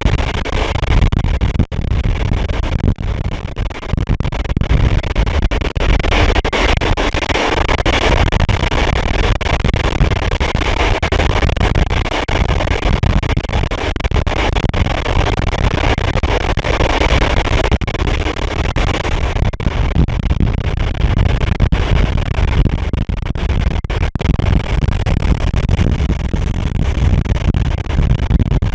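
A passenger train in motion, hauled by an SU45 diesel locomotive: a loud steady rumble and rattle of the running train, with irregular sharp knocks from the wheels.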